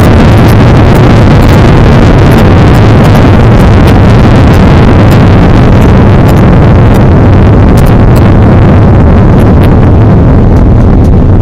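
Airbus A330-200's jet engines in reverse thrust during the landing rollout on a wet runway, heard from inside the cabin as a loud, steady rushing rumble that eases a little near the end.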